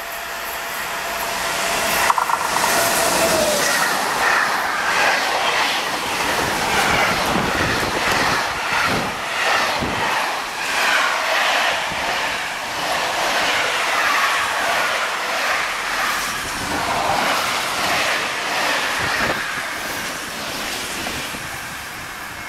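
An SNCF BB 22300-series electric locomotive passes with a whine that drops in pitch, followed by a long train of intermodal container wagons rolling by. The wagons' wheels knock steadily and squeal in wavering high tones on the curve, fading a little near the end as the train moves away.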